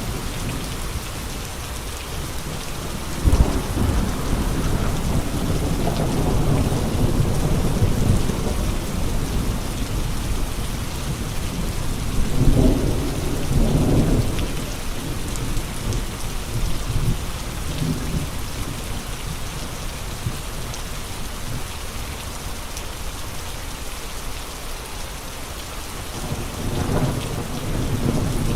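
Steady heavy rain with gusting wind, an even hiss, swelling into low rumbles about three seconds in, around twelve to fourteen seconds in, and again near the end.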